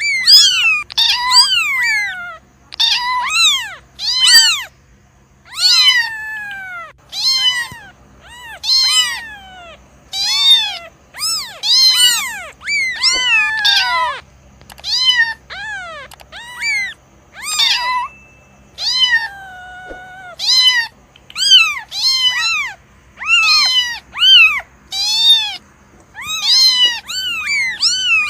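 Kittens meowing over and over: short, high-pitched calls that rise and fall, one or two a second, some overlapping.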